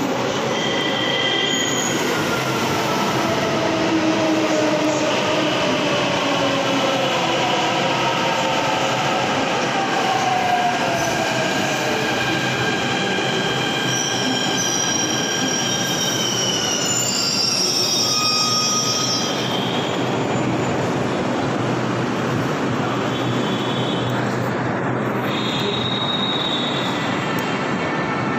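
Delhi Metro electric train pulling into the station: a steady rumble of wheels on the rails, with a whine that falls in pitch over the first dozen seconds as the train slows. High-pitched wheel and brake squeals come in about halfway through and again near the end.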